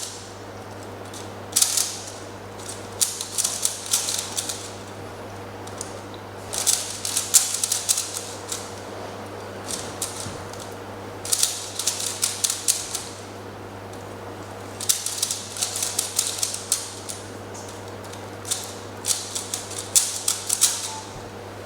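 A Rubik's cube being turned fast, its plastic layers clicking in rapid runs of one to three seconds with short pauses between them.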